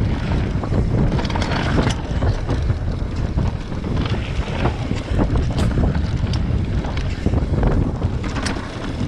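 Wind buffeting a helmet-mounted action-camera microphone on a downhill mountain bike ride, a loud rough rumble, with frequent sharp clicks and rattles from the bike over the trail.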